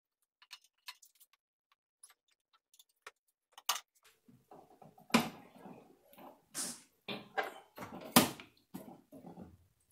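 Hoist chain and engine block being lowered into a car's engine bay: scattered light metal clicks and ticks, then from about four seconds in a run of knocks and rattling. The loudest are sharp clunks about five, six and a half and eight seconds in.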